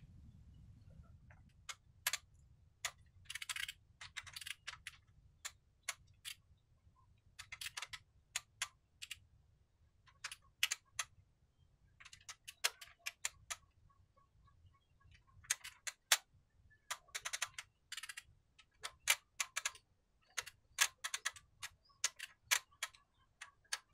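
Ratchet wrench clicking in short, irregular runs with pauses, as engine bolts are tightened in stages.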